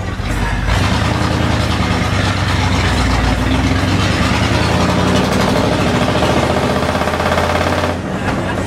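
Microbus engine running, heard from inside the passenger cabin with its road and body noise. It gets loud about a second in and eases off near the end.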